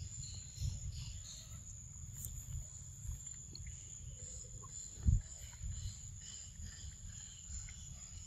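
Outdoor ambience: a steady high insect drone over a low rumble on the microphone, with a single thump about five seconds in.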